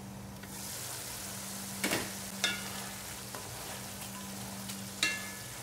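Sauce sizzling in a wok of simmering eggs, the sizzle growing brighter about half a second in as the glass lid comes off, with wooden spatulas stirring. Three sharp knocks against the pan, about two, two and a half and five seconds in, the last two ringing briefly.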